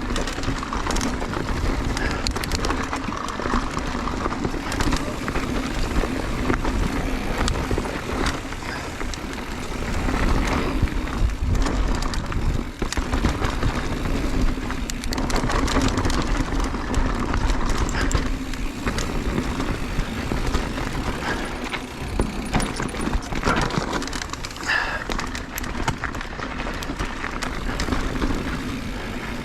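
Mountain bike riding down a trail: a steady rush of tyre and wind noise with frequent small clacks and rattles from the bike.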